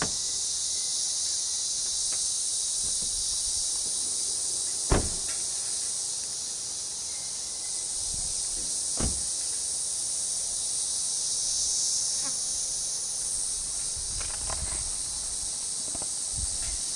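A continuous, high-pitched insect chorus, with two sharp knocks about five and nine seconds in, the first the louder.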